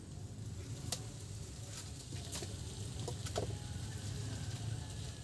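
Wood fire crackling in a clay stove under a simmering wok of coconut-milk curry: a few sharp crackles over a steady low rumble.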